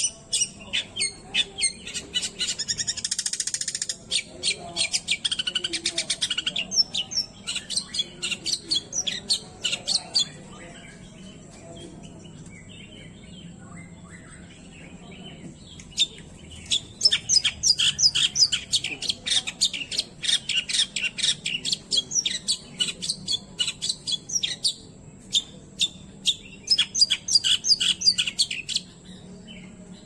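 Long-tailed shrike (cendet) singing: rapid strings of short, sharp high notes with a couple of harsher rasping passages in the first few seconds. It falls silent for several seconds about ten seconds in, then resumes with dense chattering until near the end.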